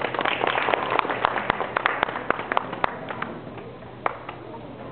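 Audience applauding: dense clapping that thins out after about three seconds to a few scattered claps.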